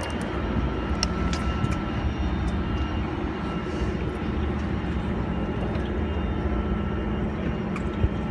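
Steady low drone of a boat's twin engines idling, with a few faint clicks.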